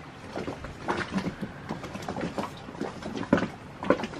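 Water lapping, with many small irregular splashes and light knocks.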